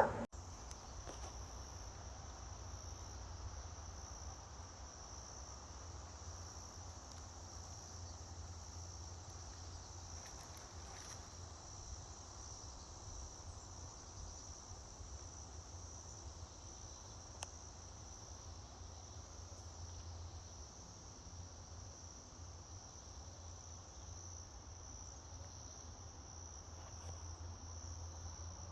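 Steady high-pitched chorus of insects, unbroken throughout, over a faint low rumble.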